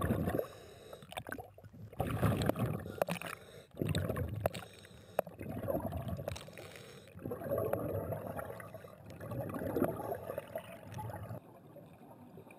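Water gurgling and bubbling around a camera going under and filming underwater, in uneven surges a second or two long, quieter near the end.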